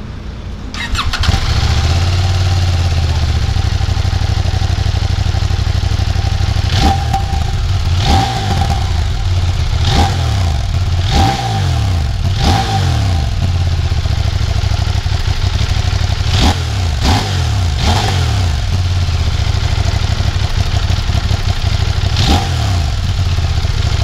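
A CFMoto 800MT's 799 cc parallel-twin engine, through its stock exhaust, starts about a second in and idles. It is blipped briefly about nine times, several quick revs in the middle and one more near the end.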